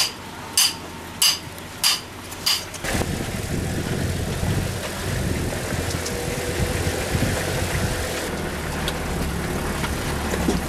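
A hand hammer strikes metal five times, a little under two blows a second, each with a ringing clang. After about three seconds this cuts to an off-road 4x4's engine running steadily at low revs.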